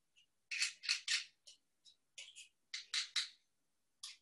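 Handheld garlic press squeezing and scraping garlic cloves into a pan of olive oil: short crackly scrapes in several clusters.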